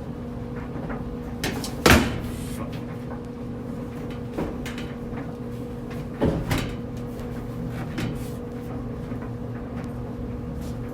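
Clothes dryer running with a steady hum, over which hard knocks and bangs of something being handled against it sound, the loudest about two seconds in and another about six seconds in.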